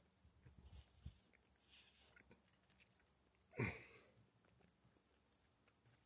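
Near silence under a steady, faint high chirring of crickets, while a man blows hard into an unpowered EVAP purge valve that lets no air through: the valve is holding shut. About three and a half seconds in comes a short, strained grunt from the blower, falling in pitch.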